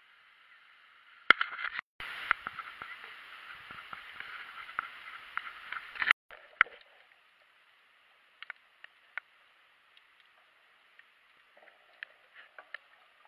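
Muffled, thin-sounding rushing noise and knocks from a waterproof camera's own microphone as it is carried about above water. A little after six seconds it breaks off, and the rest is mostly quiet with scattered faint clicks as the camera films underwater.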